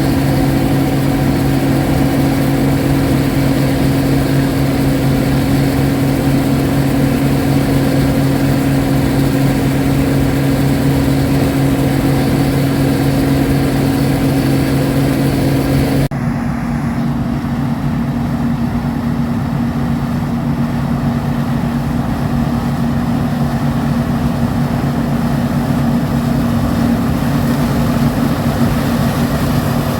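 Farm machinery engine running steadily during corn harvest. About halfway through, the sound switches abruptly to a different, duller engine note with less hiss.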